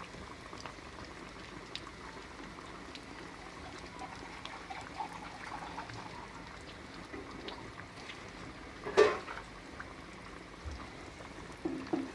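Cooking oil sizzling steadily in a frying pan with faint scattered pops as breaded aloo-chicken tikkis fry, and one sharp knock about nine seconds in.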